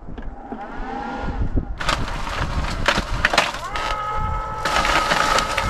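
Electric ice cream maker starting up: the canister turns in the packed ice and rock salt with a dense crackling and crunching of ice, and a steady motor whine joins about four seconds in.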